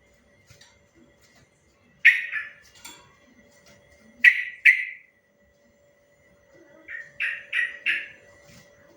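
Yellow-vented bulbul (trucuk) singing short, bright phrases: a few notes about two seconds in, a loud pair a little past the middle, and a quick run of four notes near the end, with quiet gaps between them.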